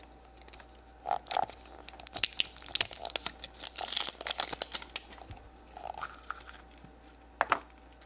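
The wrapper of a Shopkins surprise egg being torn open and crinkled by hand: a dense run of crackling and tearing, then a few sparser rustles near the end.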